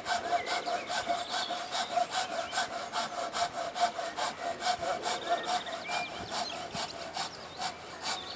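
Handsaw cutting through a wooden post: steady back-and-forth strokes, about four a second, heard from a distance.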